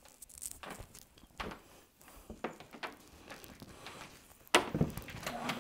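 Light scattered knocks and rustles of a power cord being dragged and moved aside, with a sharper knock about four and a half seconds in. Near the end a machine motor starts up with a steady hum.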